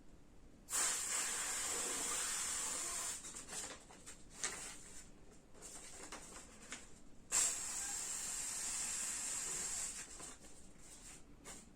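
Two long breaths blown through the slit of a folded-paper vocal-cord model, each a steady airy hiss lasting about two and a half seconds. The first starts about a second in, the second about seven seconds in.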